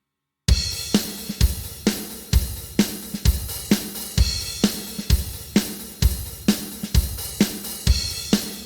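Sampled drum kit from the Stigmatized Drummer library playing a steady groove of kick, snare and cymbals, about two hits a second. It starts about half a second in and ends on a cymbal hit that rings out.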